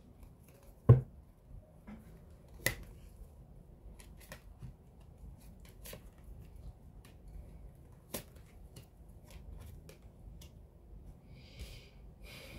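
Tarot cards being laid out on a table: a thump about a second in, then scattered light clicks and taps as cards are set down, and a short sliding rustle near the end.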